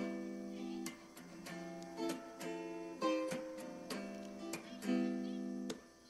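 Background music: strummed acoustic guitar chords, a new chord struck about every second.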